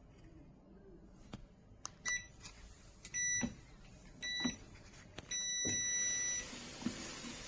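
Treadmill console beeping a start countdown: three short electronic beeps about a second apart, then a longer beep. Right after it a steady whirring hiss begins as the walking pad's motor and belt start running, with a soft thump.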